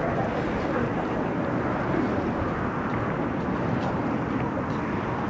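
Steady outdoor ambience: wind on the microphone and a distant crowd murmuring, with no single distinct event.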